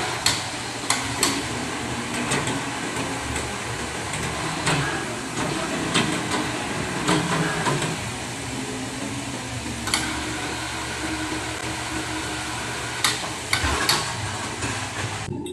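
Industrial workshop noise: sharp metal clanks and knocks at irregular intervals over a steady machinery hum, as heavy welded steel columns are handled and set upright.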